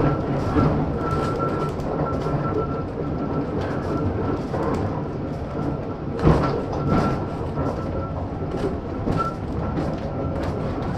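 A 1915 Ringhoffer tramcar running on rails: a steady rumble of wheels and running gear with a thin high whine that comes and goes. There is one sharp knock about six seconds in.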